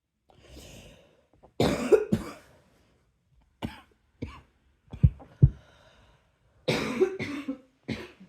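A person coughing in repeated fits: an intake of breath, two hard coughs, a few smaller coughs, then another hard run of coughs near the end.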